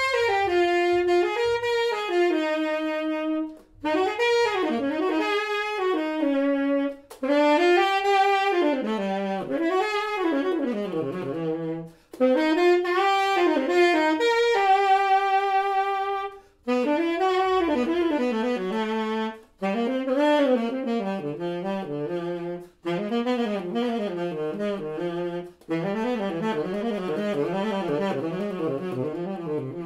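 Solo Keilwerth tenor saxophone playing one melodic pattern as a drill through key after key, in about eight short phrases with quick breaths between them, the figure repeated at a lower pitch each time.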